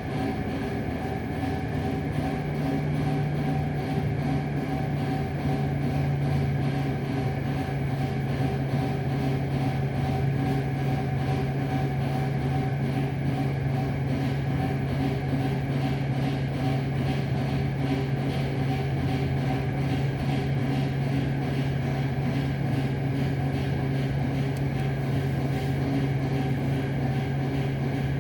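Steady mechanical hum with a strong low tone and fainter higher tones, holding an even level throughout.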